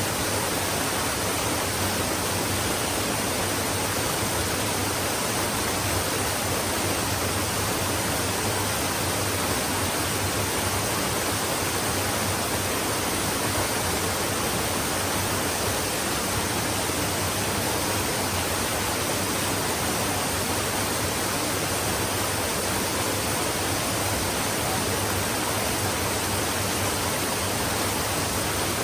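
Flowing stream: a steady, even wash of running water with no distinct splashes or changes.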